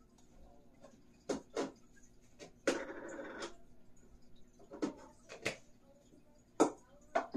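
Things being handled and set down while tidying: a series of sharp knocks and clicks, with a denser, noisier handling sound lasting just under a second about three seconds in.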